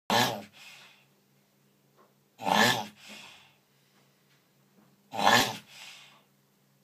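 A male tortoise mounted on a female grunting in rhythm as he mates: three short loud calls about two and a half seconds apart, each trailed by a softer breathy sound.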